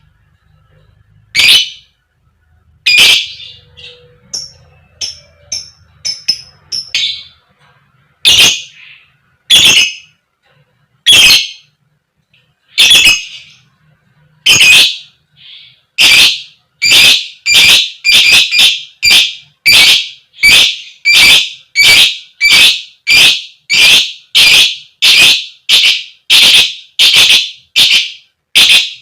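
Lovebird giving loud, sharp, repeated 'koek koek' calls, at first about one every second and a half with softer chirps between, then speeding up to about two a second from about halfway through.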